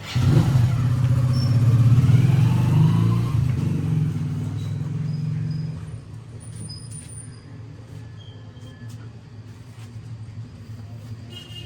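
A motor vehicle's engine running loud and close, rising in pitch as it speeds up, then falling back after about six seconds to steady traffic noise; a horn starts to toot right at the end.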